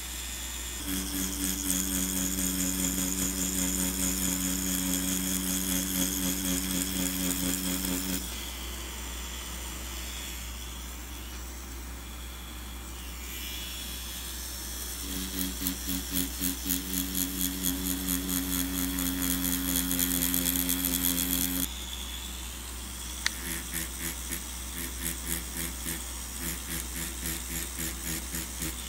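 Cartridge tattoo machine buzzing steadily as it shades into synthetic practice skin. It runs in spells: it stops about a third of the way in, starts again near the middle, stops, then runs more quietly near the end. A single sharp click comes about two-thirds of the way through.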